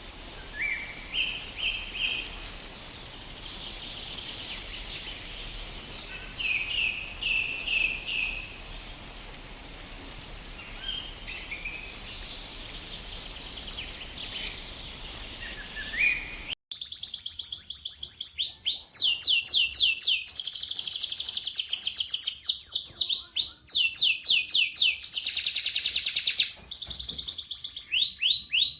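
Domestic canary singing: short, scattered chirping phrases over a background hiss, then after an abrupt cut a few seconds past the middle, a continuous fast rolling trill (the 'ngerol' song used to coax other canaries into singing).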